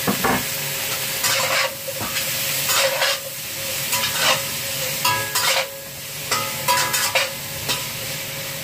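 Taro cubes and minced pork sizzling in hot oil in a metal wok while a spatula stirs them, scraping across the pan about once a second over a steady frying hiss.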